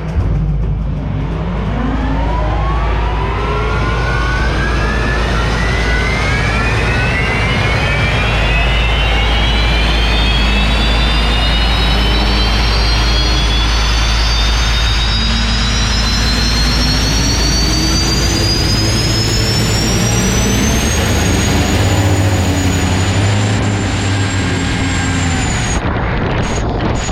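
Unlimited hydroplane's gas-turbine engine heard onboard, spooling up as the boat accelerates: a whine rising steadily in pitch for about twenty seconds, then holding, over a heavy rush of wind and water. Near the end the top of the whine drops away.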